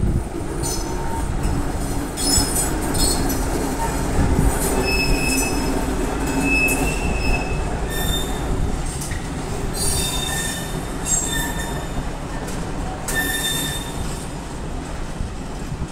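Freight train hauled by a TEM2 diesel shunting locomotive rolling past, with a steady low rumble. High-pitched metallic squeals from the wagons' wheels on the rails come and go over it.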